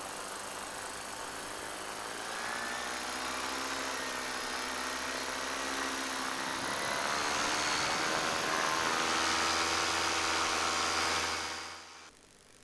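Paramotor's two-stroke engine and propeller running in flight under a rush of wind. It grows louder about two seconds in and again about seven seconds in, then cuts off abruptly near the end.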